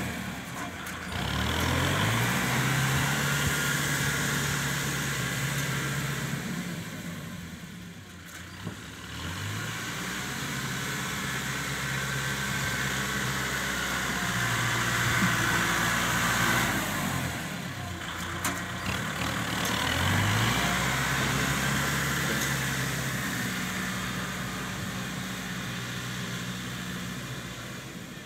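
Kubota tractor's diesel engine running as its front blade pushes and levels dirt. The engine drops back and revs up again three times, rising about a second in, about nine seconds in and about twenty seconds in.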